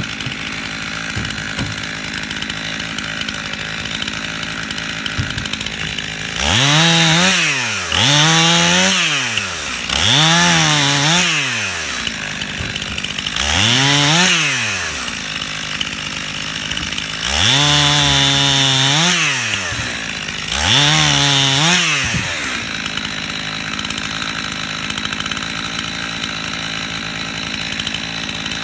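Stihl two-stroke chainsaw idling, then revved to full throttle six times in quick succession as it cuts through limb wood. Each cut lasts a second or two, the pitch rising and dropping back. After the last cut, about two-thirds of the way in, the saw settles back to an idle.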